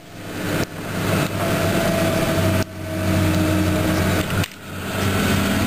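Snow groomer's engine running steadily while the machine drives the trail, a low, even hum. Three times the sound drops away suddenly and swells back up over about a second.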